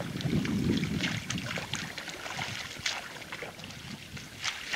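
Oars of a one-person inflatable pontoon boat rowing through lake water: irregular small splashes and knocks, with a low rush of wind on the microphone about half a second in.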